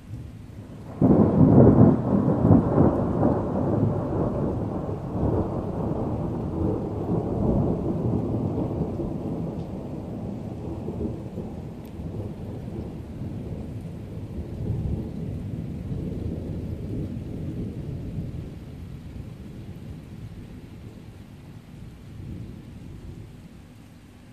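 Thunder: a sudden loud clap about a second in, followed by a long low rumble that rolls on and slowly fades over some twenty seconds.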